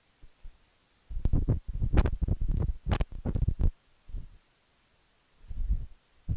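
Crackling, rumbling thumps from a shorting microphone, cutting in and out: several bursts in the first half, two shorter ones later and a sharp click near the end, with dead gaps between.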